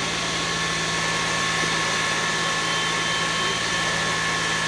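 An engine in the fire service's equipment running steadily at constant speed, with a steady whine above the engine noise.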